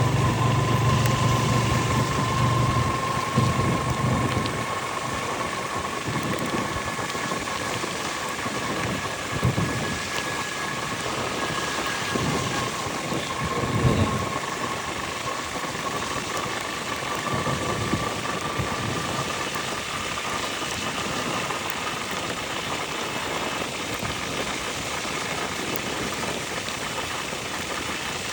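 Steady rain falling, with a motorcycle engine idling low for the first few seconds before it drops away. A faint steady whine runs underneath, and there are two brief louder knocks, about ten and fourteen seconds in.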